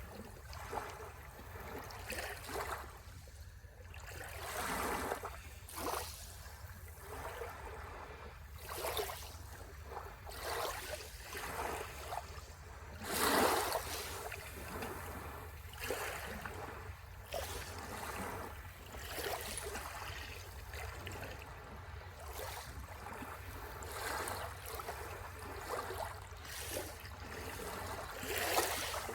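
Small sea waves washing onto the shore, one swell after another every second or few, with a bigger wave about 13 seconds in.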